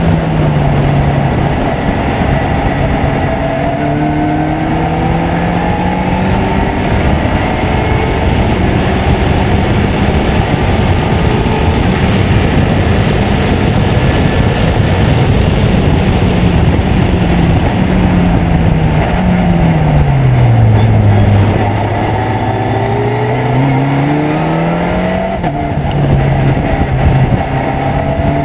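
Race car engine running hard, heard from on board with wind and road noise underneath. The note holds fairly steady for most of the time. About two-thirds of the way through it falls as the car slows, then climbs again under acceleration, with a quick step in pitch near the end at a gear change.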